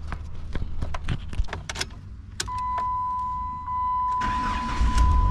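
Keys clicking and rattling, then a steady electronic tone comes on about halfway through. Near the end the Chrysler PT Cruiser's starter cranks and the engine catches and runs. It starts despite the tow-hitch wiring just cut out of the harness.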